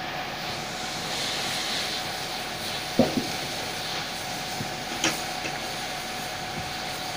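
Fire engine running steadily, with two sharp bangs, the first the loudest, about three and five seconds in.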